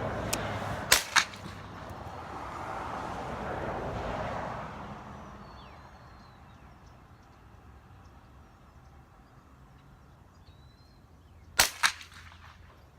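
Gunshots on a shooting range: two sharp reports close together about a second in, and two more near the end, over a steady rushing noise that dies away about five seconds in.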